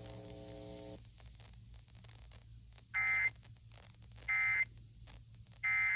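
Emergency Alert System end-of-message signal over FM radio: three short bursts of warbling SAME data tones, the digital 'NNNN' code that closes a Required Monthly Test, about 1.3 s apart. A low steady buzz fills the first second.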